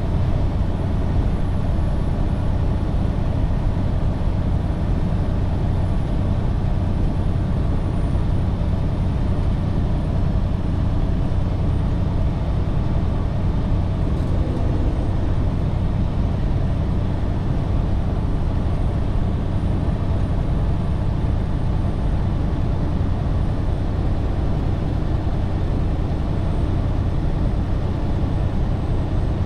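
Semi-truck driving at steady speed: a constant low engine drone mixed with road and tyre noise, with no change in pitch or level.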